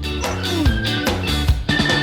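Upbeat background music with drums and a steady beat.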